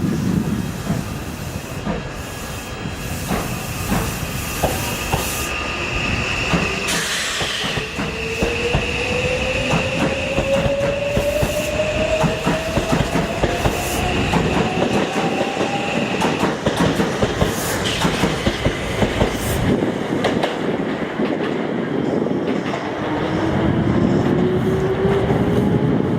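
Odakyu 70000 series GSE Romancecar electric train pulling away and gathering speed, with wheels clicking over rail joints. The electric traction motors give a whine that rises steadily in pitch as the train accelerates, and rises again near the end. A steady high-pitched whine is heard in the first half.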